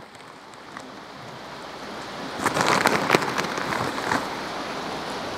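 Plastic bag of wood chips crinkling as the chips rattle and shift inside it while the bag is handled and rummaged through, with the densest crackling from about two and a half to four seconds in.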